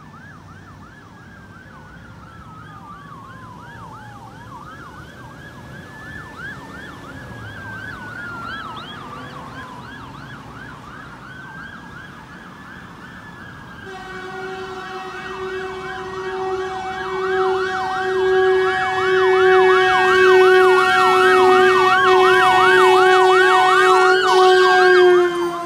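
Ambulance siren approaching, a slow rising-and-falling wail with a rapid yelp over it, growing steadily louder. About halfway through a steady horn tone starts and is held under the siren. Near the end, as the ambulance passes, the sound dips slightly in pitch.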